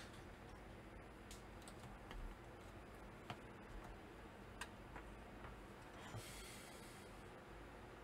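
Near silence with a few faint, scattered clicks and light taps from handling tools on a workbench, and a short soft rustle about six seconds in.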